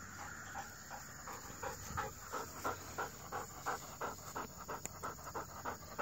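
Retriever panting hard after a retrieve, about three breaths a second, while carrying a duck in her mouth; the panting gets a little louder near the end as she comes in close.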